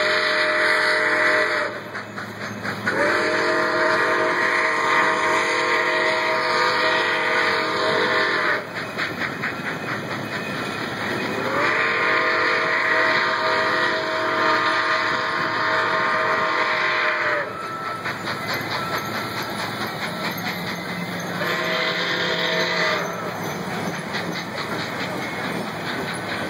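Steam whistle of Nickel Plate Road 765, a 2-8-4 Berkshire steam locomotive, blowing as it pulls out with its train: the end of one blast, then two long blasts of about six seconds each and a short one near the end. Between the blasts the moving train gives a steady rhythmic beat.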